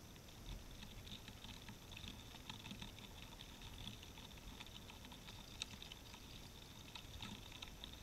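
Faint, irregular patter of tiny clicks and ticks over a low rumble.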